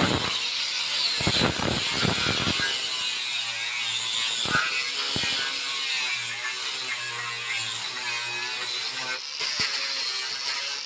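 Handheld angle grinder with a sanding disc, running at speed and sanding the inside edge of a wooden frame piece. It whines steadily, with rougher grinding stretches in the first three seconds and a few brief ones later as the disc bites into the wood.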